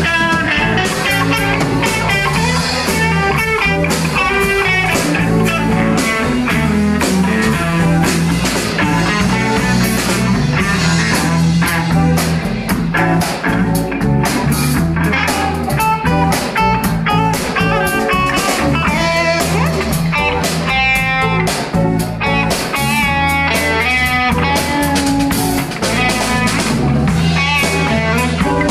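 Live band jamming: electric guitar lines over electric bass and a drum kit, playing without a break.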